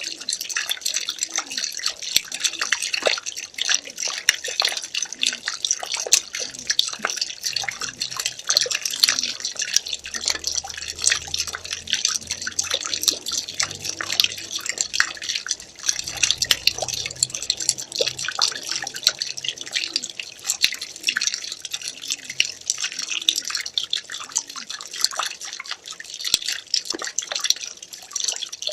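Water pouring steadily into water: a continuous dense splashing and bubbling made of many small drips and plops, with no break.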